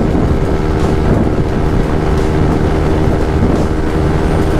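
Yamaha NMAX 155 scooter's single-cylinder engine, breathing through an open JVT V3 aftermarket exhaust, running flat out at a steady pitch near its top speed, under heavy wind buffeting on the microphone.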